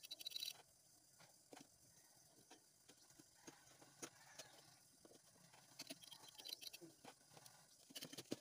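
Faint scattered clicks and taps of hands handling an opened rice cooker's plastic housing and wiring: a quick rattle of clicks at the start, single ticks through the middle, and a few small clusters near the end.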